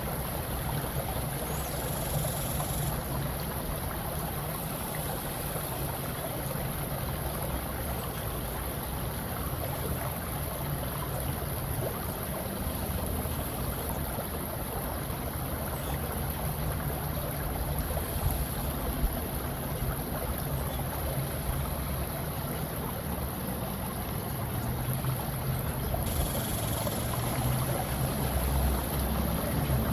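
Steady water ambience: an even rushing wash of flowing water that does not let up, a little louder near the end.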